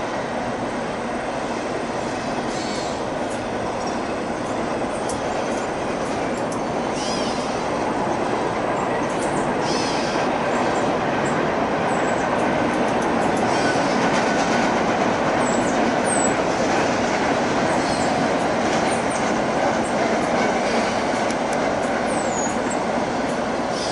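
Intermodal container freight train rolling past: a steady rumble of steel wheels on rail that swells a little in the middle.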